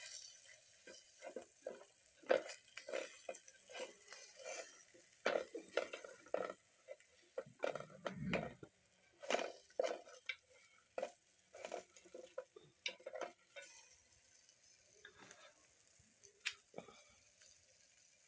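An orange plastic utensil repeatedly scraping and clinking against a metal can while turning pieces of food frying in oil, over a faint sizzle. The scraping thins out near the end.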